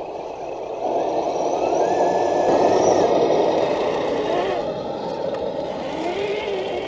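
An electric RC scale crawler's motor and geared drivetrain whine under load while climbing, the pitch rising and falling with the throttle. It gets louder about a second in.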